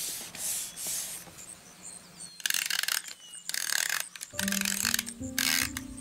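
Paper rustling and rubbing in several short scratchy bursts as cutout pictures are handled and pressed flat onto a journal page by hand. Soft piano music comes in about two-thirds of the way through.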